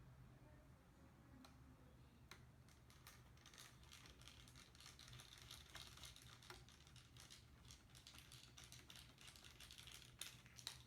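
Faint, quick plastic clicks and rustling as a laptop's display frame and screen parts are handled and fitted back together, sparse at first and growing dense from about two seconds in.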